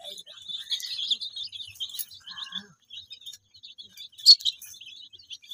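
A flock of desi baby chicks peeping continuously in many short, high cheeps, with one sharp click about four seconds in.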